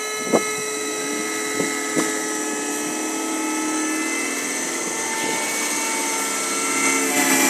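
Electric motor of a level-crossing barrier running with a steady whine as it raises the arm after the train has passed, with a few light clicks from the mechanism in the first couple of seconds.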